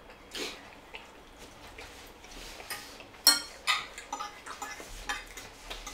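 Forks and spoons clicking and scraping against ceramic plates and bowls in scattered short strokes, the sharpest click about three seconds in.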